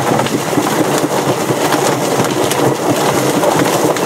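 Homemade barrel-style chicken plucker running with scalded roosters inside: the birds tumble and slap against the rubber plucking fingers on the spinning plate while a hose nozzle sprays water into the drum, making a steady dense wet clatter.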